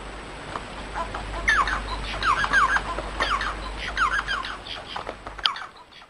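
Bengalese finch singing: a chattering run of short chirps and quick downward-sliding whistled notes. The sound cuts off abruptly near the end.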